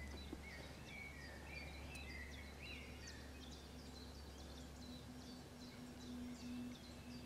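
Songbirds calling and singing faintly, a string of short chirping notes with quick rises and falls in pitch, over a steady low rumble of background noise; a faint low steady hum joins about a second and a half in.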